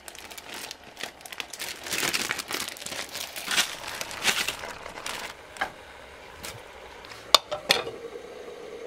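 Plastic food bags crinkling and rustling as sliced sundae and then chopped vegetables are tipped out of them. Near the end come a sharp clack, like a metal lid set on the wok, and a faint steady hum.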